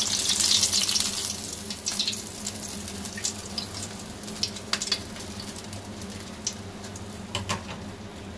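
Battered chicken wings deep-frying in a wok of hot oil: a loud sizzle for the first couple of seconds that settles into a quieter crackle with scattered pops.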